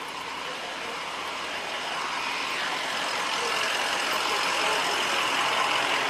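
Steady vehicle noise, like a motor vehicle running or passing, growing gradually louder.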